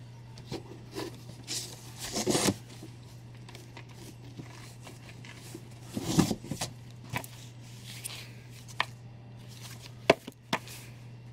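Comic books being handled and shuffled against a cardboard shipping box: a handful of short paper rustles and scrapes, the loudest about two seconds and six seconds in, over a low steady hum.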